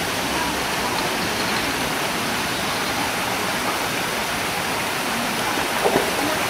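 Steady rush of running water at a swimming pool, with a brief bump near the end.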